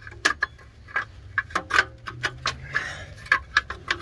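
Irregular light metallic clicks and clinks, a few each second, from a loose metal bracket and hand tools being handled, over a steady low hum.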